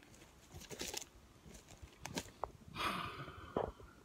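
Faint, irregular footsteps on a forest trail with light rustling and handling noise, and a short breathy sound about three seconds in.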